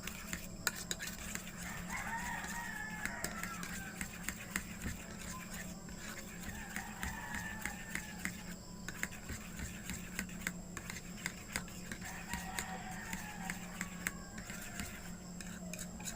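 Short clicks and smacks of eating, with a steady low hum behind them. A rooster crows faintly in the background about three times.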